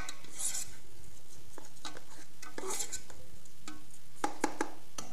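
A utensil stirring arborio rice into cooked onions and pancetta in a pot, with scattered scrapes and clicks against the pan and a quick run of three sharper knocks about four seconds in. The rice is being mixed in to take on the flavour of the fat before liquid is added.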